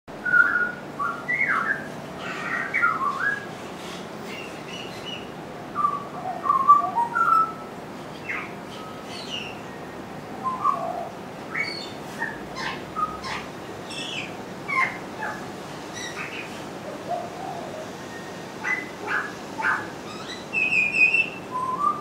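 Pied butcherbird singing: phrases of short whistled notes that slide up and down, with short pauses between phrases, and a few higher, sharper chirps near the end.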